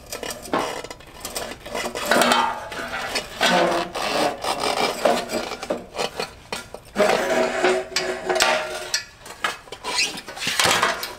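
Metal scraping, rubbing and clanking as a motorcycle's rear wheel and swingarm are pulled out of the frame. The noise comes in irregular bouts, with short ringing tones from the metal parts.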